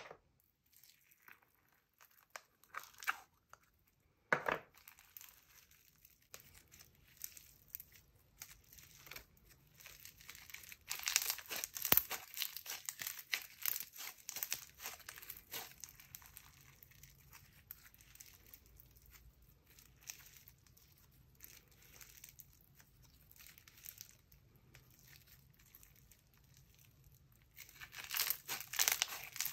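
Purple Bingsu slime, a slime packed with small plastic beads, being squeezed and stretched by hand, making dense runs of small crunching clicks as the beads pop and shift. The crackling is loudest from about eleven to fifteen seconds in and again near the end.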